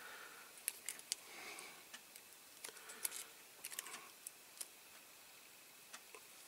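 Faint, scattered small clicks and light rustling as fingers handle and bend over a model Mini Moke's thin plastic canopy frame and striped canopy. The clicks bunch in the first four or five seconds and then die away.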